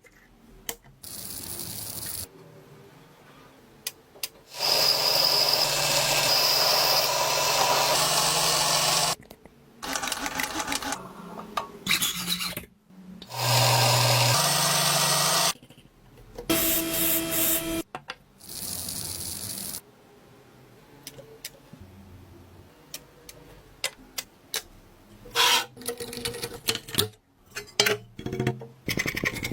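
A quick series of short workshop sounds joined by hard cuts. Twice a power tool runs steadily for a few seconds, and in between there are shorter stretches of rubbing and scraping, with scattered clicks and rattles.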